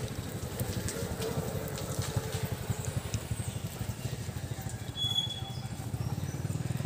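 A small engine running steadily at idle, a low even pulsing, with faint clicks over it and a brief high tone about five seconds in.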